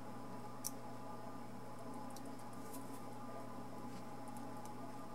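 A few faint, light clicks of a small screwdriver and tiny metal parts of a model locomotive's running gear being handled, over a steady low hum.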